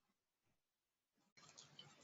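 Near silence: faint room tone, with a faint hiss of background noise coming in near the end.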